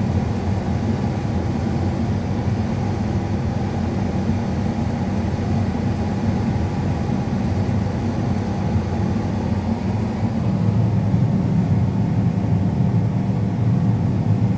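Combine harvester running steadily as it cuts a trial strip of wheat for a moisture sample. The drone is deep and gets slightly louder about ten seconds in.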